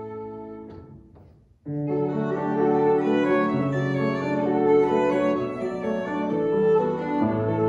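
Violin and grand piano playing a duet. A held chord dies away over the first second and a half, there is a brief pause, and then both instruments come back in with sustained notes.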